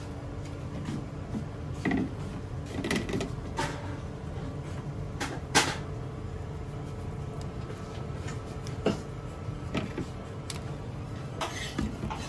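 Small clicks and taps of raw shell-on shrimp being handled and pierced with wooden toothpicks in a stainless steel tray, scattered and irregular with the sharpest about five and a half seconds in, over a steady low hum.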